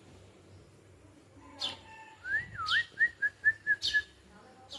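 A sparrow gives three short, sharp chirps while someone whistles: one wavering note that rises and dips, then a quick run of about six short whistled notes.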